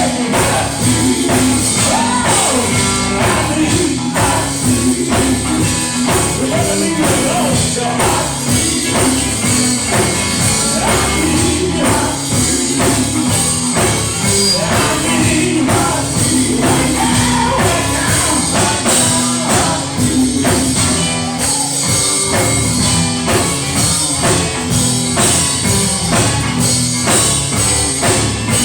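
Live gospel music: voices singing over a full band with a steady drum beat, loud and continuous.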